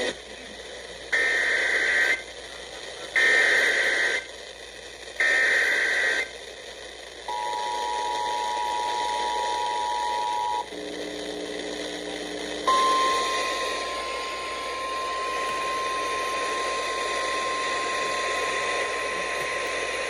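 Emergency Alert System tornado warning coming in over a radio. Three one-second bursts of screeching data tones (the SAME header) are followed by a two-tone attention signal lasting about three seconds and a brief set of lower tones. Then a long, steady single-pitch alert tone begins about thirteen seconds in, all over a hiss of radio static.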